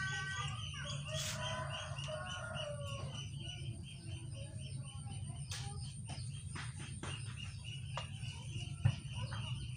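A rooster crowing once, a held, pitched call lasting about three seconds. It is followed by a few sharp knocks and clicks from hands working inside a plastic water-filter drum. A steady pulsing high tone and a low hum run underneath.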